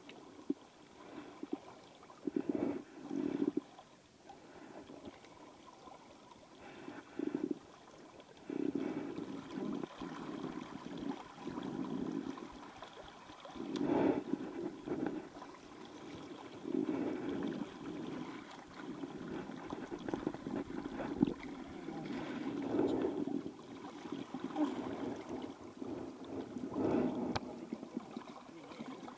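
Shallow river water gurgling and sloshing close by, in uneven surges with a few sharper splashes, as a hooked American shad is played and brought to the net.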